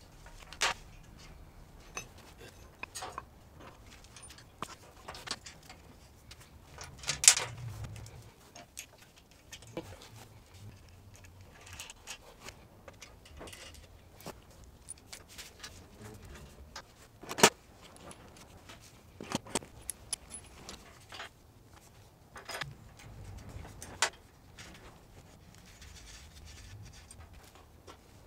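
Loose steel go-kart parts clinking and knocking as a front steering spindle, coil spring, washers and bolts are fitted by hand: scattered sharp metallic clicks and taps, a few of them louder knocks.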